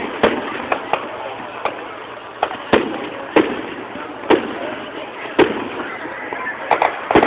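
Aerial firework shells bursting: about a dozen sharp bangs at irregular intervals, some loud and some fainter, a few coming close together near the end.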